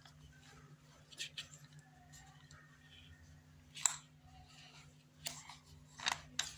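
A few faint clicks and light metal-on-plastic knocks as a drill bit is worked loose and pulled out of a rotary hammer drill's keyless chuck. The sharpest click comes about four seconds in, with a few more near the end, over a faint steady hum.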